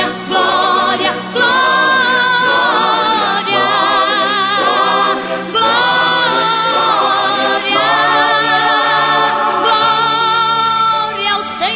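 Gospel song: voices singing long, held notes with vibrato, in phrases of about two seconds.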